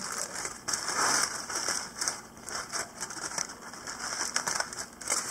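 Aluminium foil crinkling and crackling as it is pulled open from around a smoked brisket, in irregular rustles, loudest about a second in.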